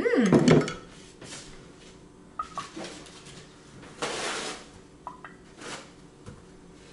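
After a brief loud voice-like sound at the very start, light kitchen clatter: a few short clinks of utensils against glass and dishes, some briefly ringing, and a short rustle about four seconds in.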